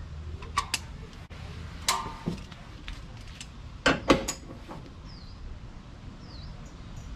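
Sharp metallic clicks and clinks of a wrench being worked on the oil drain plugs under an air-cooled Porsche 911SC: two quick clicks about half a second in, a short ringing clink near two seconds, and two louder clicks around four seconds.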